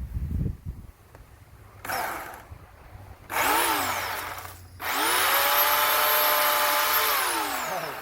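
Corded electric chainsaw (Bauer 16-inch, 14.5 A) triggered in three goes: a brief blip about two seconds in, a run of about a second and a half, then a three-second run. Each time the motor whines up to speed and winds down when the trigger is released. A low rumble comes just before the first blip.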